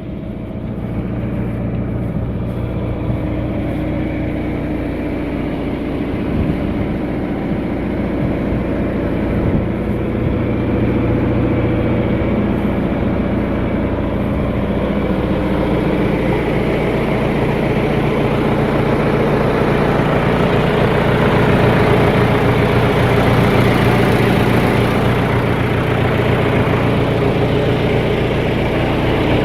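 John Deere 310A loader backhoe's engine running steadily, slowly growing louder through the second half.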